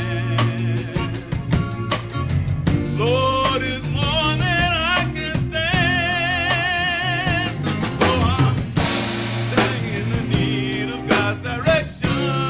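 Gospel band music: a drum kit keeping a steady beat with a bass line, and a voice singing long notes with vibrato through the middle.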